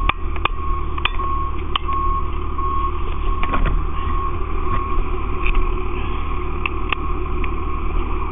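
Fire apparatus engine running with a steady low rumble, under an electronic warning beep repeating about one and a half times a second. A few sharp metallic clicks in the first two seconds and one more near the end.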